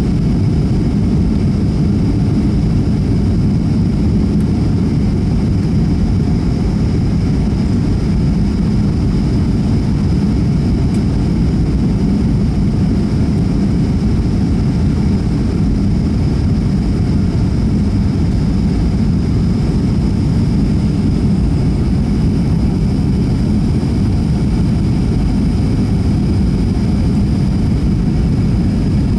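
Steady jet-airliner cabin noise inside a Boeing 757-300: a constant low rumble of engines and airflow with a faint steady high whine over it.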